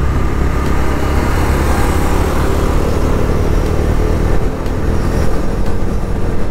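Bajaj Dominar's single-cylinder engine pulling steadily as the motorcycle gathers speed on the road, mixed with a heavy rumble of wind and road noise on the bike-mounted microphone.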